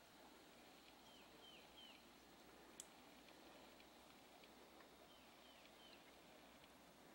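Near silence with a faint songbird singing: a phrase of three quick down-slurred notes, heard twice about four seconds apart, and a single small click between them.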